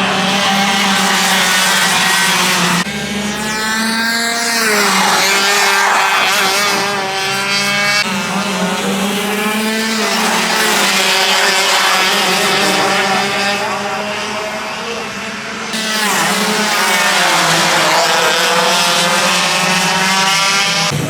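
Racing kart engines running at high revs on track. Their pitch climbs sharply twice, about four seconds in and again near sixteen seconds, as karts accelerate past.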